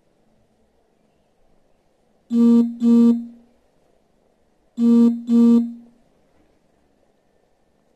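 A pitched, keyboard-like tone sounds as two quick notes of the same pitch, and the pair repeats about two and a half seconds later.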